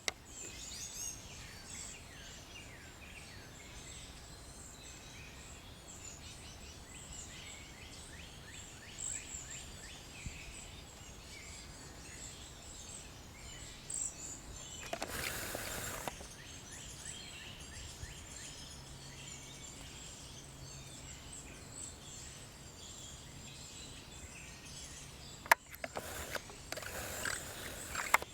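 Small songbirds calling over and over with short, high, thin notes, in a quiet outdoor ambience. Two brief bursts of noise break in, one about halfway through and one near the end, with a sharp click just before the second.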